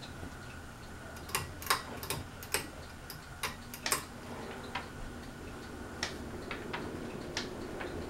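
Sharp, irregular clicks from a Hunter Silent Breeze ceiling fan's pull chain and switch as a hand works the chain, over the fan's steady motor hum and blade whoosh. The running sound grows louder in the second half, as the fan changes speed.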